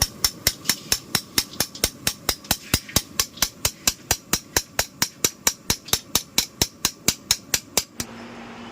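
A rapid, even series of sharp knocks, about five a second, that stops abruptly near the end.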